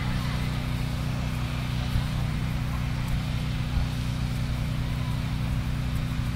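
A steady low engine hum, like a vehicle idling, holding an even pitch throughout.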